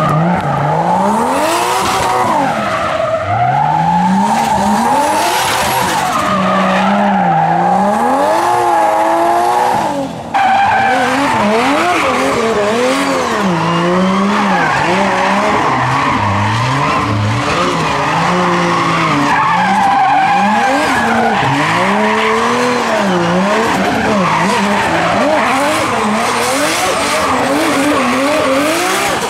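Drift cars sliding on tarmac: engines revving hard up and down over a continuous screech of spinning, sliding tyres. About ten seconds in the sound breaks off briefly, then a second car's engine and tyres take over in the same way.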